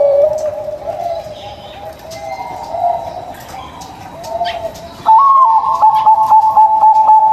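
Zebra dove (perkutut) cooing: softer wavering coos, then about five seconds in a loud, sustained, rapidly pulsing trilled coo.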